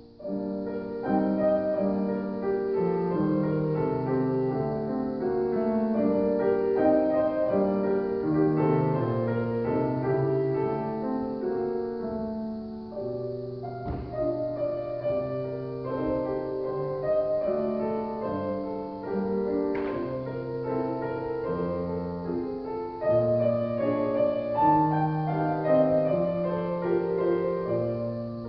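Solo grand piano playing a classical piece: a melody over a moving bass line, continuous throughout. A brief sharp click sounds a little before two-thirds of the way through.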